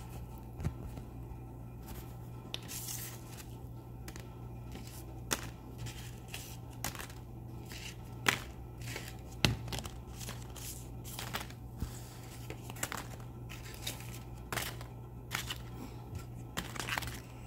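Folded paper origami tanks being handled and set down on a countertop: irregular rustling and crinkling of paper with light taps, over a steady low hum.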